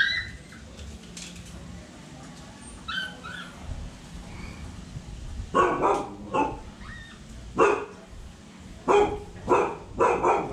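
Phu Quoc ridgeback dog barking: a run of about eight short barks, starting about five seconds in.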